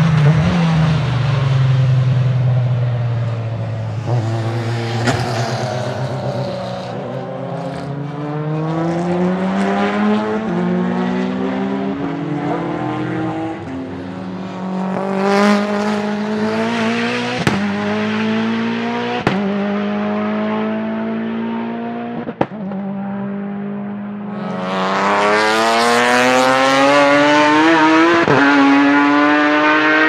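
Time attack race car engines at full throttle, climbing in pitch through the gears with a sharp break at each upshift as the cars pass and pull away. About 25 s in, a louder car accelerates hard with a higher, rising note.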